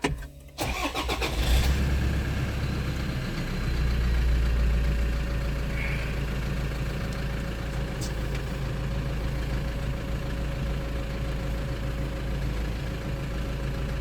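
Toyota Land Cruiser Prado 150 engine starting: a brief crank about half a second in, it catches and revs up, then settles into a steady idle.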